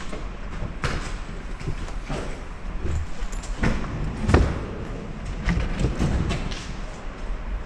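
Several thumps and knocks of luggage being lifted and set into the back of a minivan, the loudest about four seconds in, over a steady low rumble.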